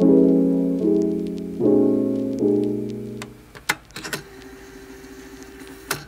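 Background piano music, soft chords struck roughly once a second, fading out about three seconds in; a few faint clicks follow.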